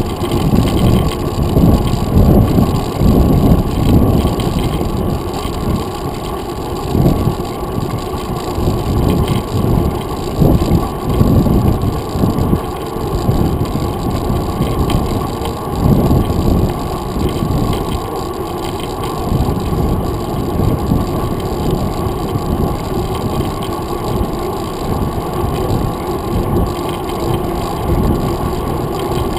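Wind buffeting the microphone of a handlebar-mounted camera on a moving mountain bike, with tyre and road rumble. The sound is a loud, low rush that swells and dips in gusts.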